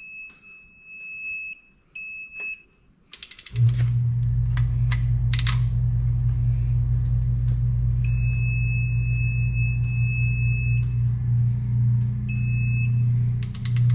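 Electronic torque wrench beeping with a steady high tone while bolts are pulled to torque, breaking off and resuming several times. A few ratchet clicks follow. From about three and a half seconds a loud, steady low machine hum starts and continues under the beeps.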